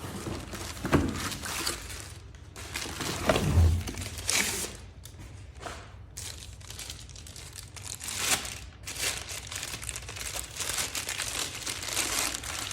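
Packaging crinkling and rustling in irregular bursts, with a few knocks, as vacuum cleaner parts are handled and unwrapped.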